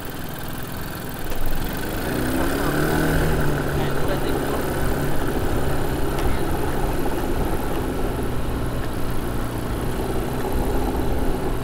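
ATV quad bike engine revving up about two seconds in, its pitch rising, then running steadily.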